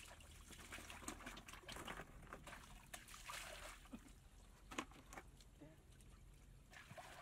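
Faint trickle and slosh of shallow muddy water, with scattered knocks and splashes from someone wading and handling a bucket; the sharpest knock comes near the middle.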